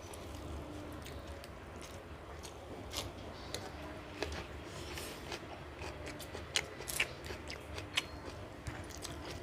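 People chewing and eating, with irregular wet smacks and crunchy clicks; a few sharper, louder ones come about two-thirds of the way in.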